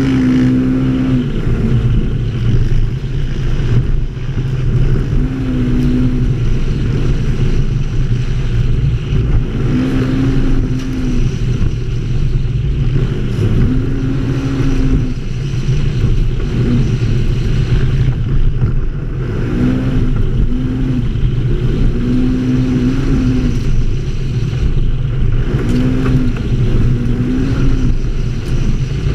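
ATV engine running as it drives a sandy trail, a steady low rumble with its pitch rising and falling every few seconds as the throttle changes.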